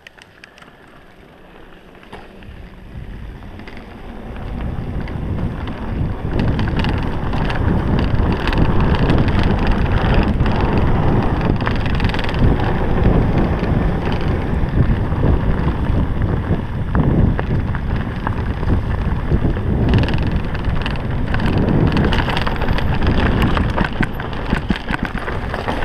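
Mountain bike riding down a dirt trail: tyres rumbling over dirt and leaves with scattered rattles from the bike, under wind buffeting the microphone. It starts quieter and builds over the first few seconds as the bike picks up speed, then stays loud and steady.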